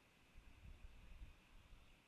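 Near silence: faint steady hiss, with a soft low rumble from about half a second in to about a second and a half.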